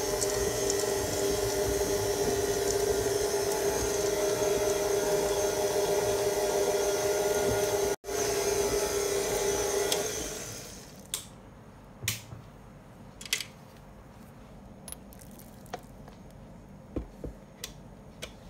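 Stand mixer running at low speed, its flat beater churning flour into stiff cookie dough: a steady motor hum that breaks off for a moment about eight seconds in, then winds down and stops about ten and a half seconds in. A few light clicks and knocks follow.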